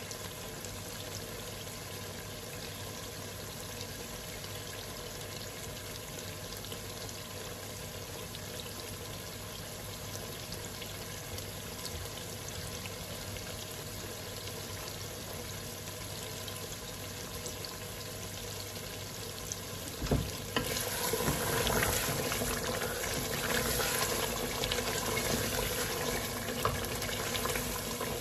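Mutton and spice masala frying in oil in a cooking pot, a low steady sizzle; about twenty seconds in there is a knock, then the sizzling turns louder and more crackly. This is the stage where the oil separates from the masala.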